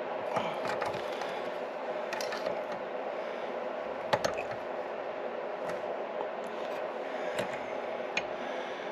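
Light metallic clicks and taps of a hand tool working the rocker-arm adjuster on a Yamaha G2 golf cart engine while the valve lash is set, the sharpest click about four seconds in, over a steady background hum.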